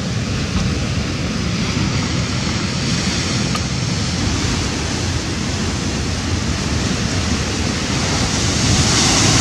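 Sea surf washing against rocks, with wind on the microphone: a steady rushing noise that grows a little louder near the end.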